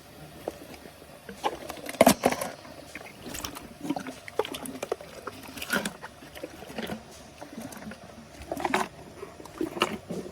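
Hippo chewing a small pumpkin: irregular wet crunches and squelches, a few seconds apart.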